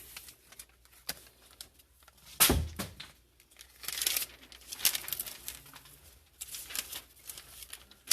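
Tape being pulled off the roll and torn, in several short rasping pulls, for sealing a furnace duct joint against air leaks. A single louder knock comes about two and a half seconds in.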